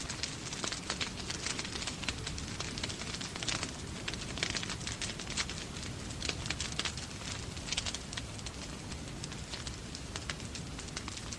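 Wood fire crackling in a fireplace, with frequent irregular pops and snaps, over a steady hiss of falling rain.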